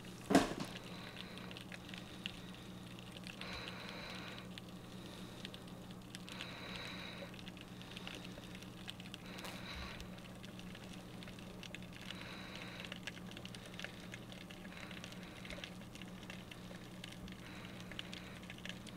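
Faint water sound: a crackling patter over a steady low hum, swelling softly every few seconds, with one sharp knock just after the start.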